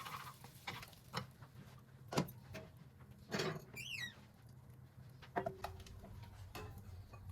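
Light clicks and knocks of household objects being handled, with a brief rustle about three and a half seconds in and a short high squeak just after.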